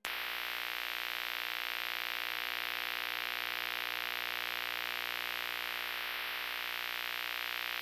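Steady VHS-style tape static: an even hiss with a low buzzing hum underneath. It starts abruptly and holds level throughout.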